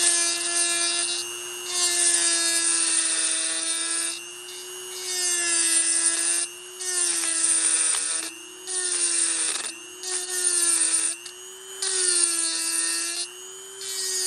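Dremel rotary tool running steadily while its carbide bit grinds excess metal out of a motorized-bicycle exhaust header flange opening, port matching it to the gasket. The grinding comes in short passes, breaking off briefly every second or two as the bit is lifted and moved along the marker line, over the steady whine of the motor.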